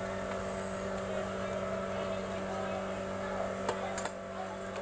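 A machine's steady, even-pitched hum, with a few sharp clicks near the end.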